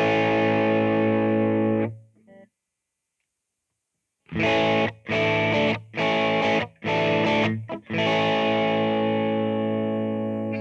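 Fender Stratocaster Blacktop electric guitar played through a Boss GT-100's Twin Reverb amp emulation: a held chord that stops about two seconds in, a short pause, then four short chords and a long ringing chord that slowly fades.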